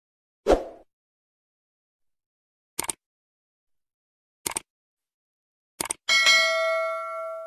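Subscribe-button sound effect: a soft pop, then three quick double mouse clicks, then a notification bell rings once and fades over about a second and a half.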